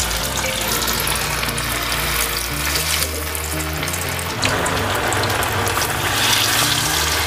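Marinated chicken pieces deep-frying in a pot of hot oil for the first fry: a steady, dense sizzle of bubbling oil that grows brighter and louder a little past halfway.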